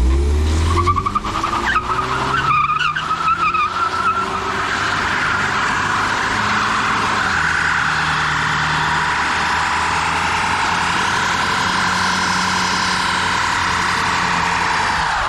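Car doing a burnout: the engine revs up at the start, then the tyres spin and squeal. The squeal wavers at first, then holds as a long, loud, steady squeal with tyre noise, and stops abruptly at the end.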